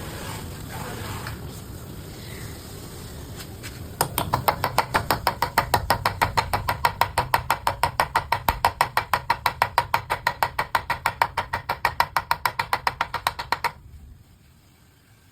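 A low rumble, then, about four seconds in, rapid, evenly spaced sharp metallic clicks, about five a second, that stop abruptly near the end.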